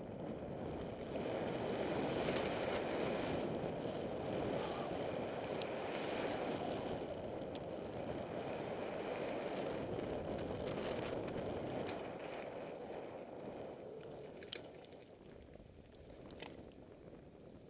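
Mountain bike tyres rolling fast over loose stone and gravel on a downhill trail, a steady rushing noise with wind on the microphone and a few sharp clicks and knocks from the bike. The rushing fades over the last few seconds as the bike slows at the bottom of the trail.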